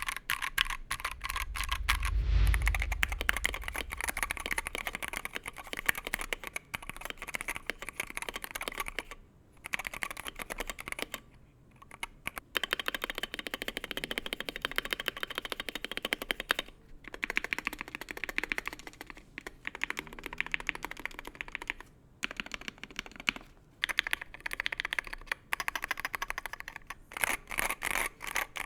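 Fast typing on a Wooting 60HE keyboard in a KBDfans Tofu60 aluminium case: a dense run of key clacks with a few short pauses and a low thud about two seconds in.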